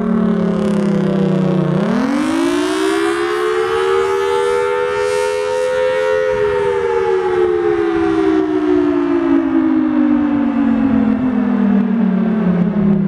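Federal Sign & Signal Thunderbolt 1000T fire siren wailing loudly. Its pitch bottoms out about two seconds in, climbs quickly to a peak around the middle, then slides slowly back down.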